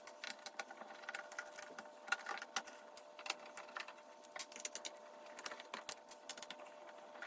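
Irregular small clicks and taps of a screwdriver backing out the bottom screws of a plastic robot vacuum housing, over a faint steady whine.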